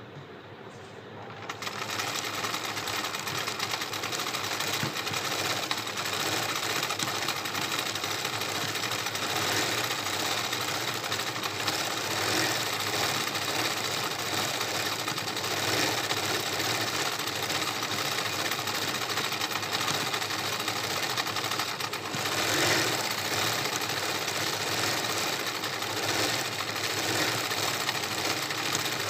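Electric sewing machine running fast, stitching embroidery through fabric held in a hoop. It starts up about a second and a half in and then runs steadily.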